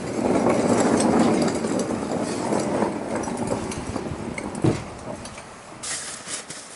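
Wheels of an old mechanic's creeper rolling on a concrete floor, a rattling rumble for about three seconds that fades out, with a single knock a little later. Near the end, a brief scrubbing as a paper shop towel wipes the truck's underside.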